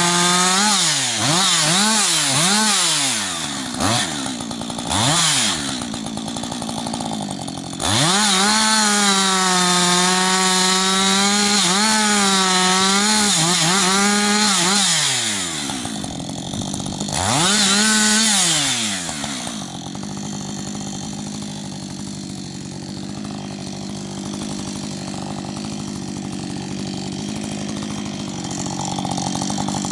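Husqvarna 555 two-stroke chainsaw bucking logs. It holds at full throttle through the cuts, drops and blips its throttle between them, and settles to a steady idle about twenty seconds in.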